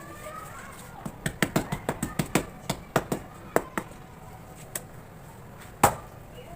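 Sharp taps on hardened cement cakes: a quick run of about six taps a second, then a few scattered taps and one louder knock near the end.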